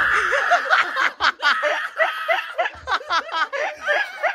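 A loud held cry at the start breaks into laughter, short rapid bursts about three a second.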